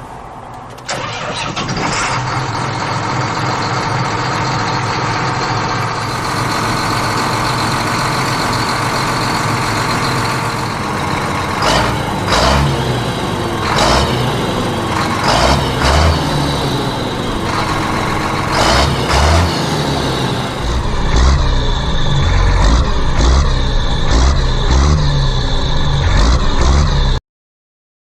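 Tractor engine starting suddenly about a second in and then running steadily. A series of sharp knocks comes in the middle, a heavy pulsing low rhythm joins near the end, and the sound cuts off abruptly just before the end.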